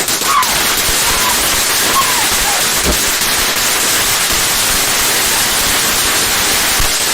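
A lit firework spraying indoors with a loud, steady hiss that cuts off suddenly at the end.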